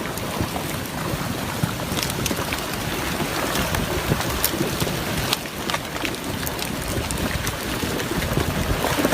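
Creek in flash flood: a steady rush of fast, churning floodwater, with a few sharp clicks and knocks in it.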